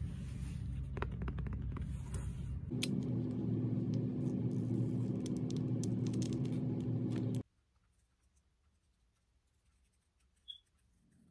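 Hands handling cardboard and plastic packaging: scratching, scraping and sharp clicks over a low steady hum. The hum gets louder about three seconds in and cuts off suddenly a little past halfway. After that there is near silence, broken once by a brief high blip.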